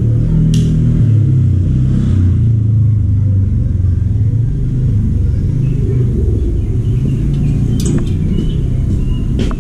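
Steady low rumble, like a running vehicle or motor, with a couple of brief sharp clicks.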